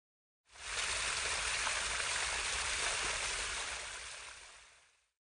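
A steady rushing noise like running or spraying water, starting suddenly about half a second in and fading out over its last second and a half.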